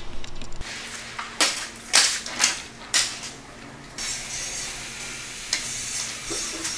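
A few sharp metallic clinks and rattles between about a second and a half and three seconds in, then a steady faint hiss with an odd light click.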